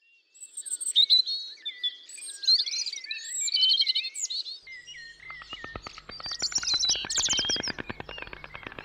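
Small songbirds chirping and trilling, then about halfway through a rapid, even, dry rattle starts: white stork bill-clattering as the pair mates on the nest, with songbird calls going on over it.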